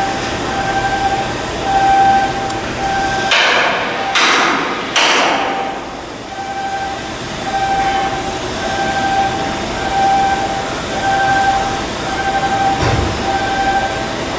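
Electronic warning beeper sounding a steady repeating beep, a little under two a second, like the travel alarm of a crane or yard vehicle; about three to five seconds in, three short rushes of noise from shipyard work sound over it.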